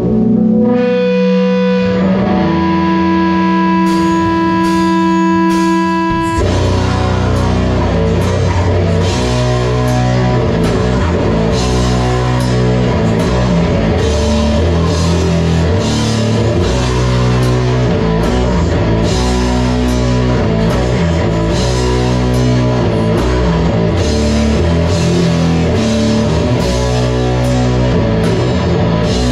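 Rock band playing live in a small rehearsal room: electric guitars and bass hold ringing chords over cymbal strikes, then about six seconds in the full band comes in with drums on a repeating riff.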